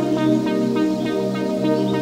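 Electronic music made in software synthesizers: a sustained chord with a quick, repeating run of short notes over it, no drums.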